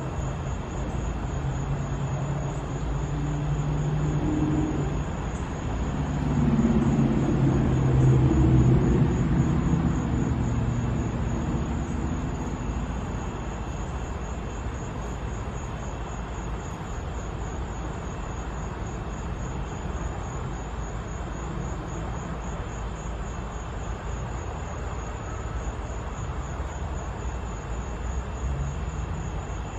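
A distant engine rumble that swells to its loudest about seven seconds in, then fades back to a steady low background drone.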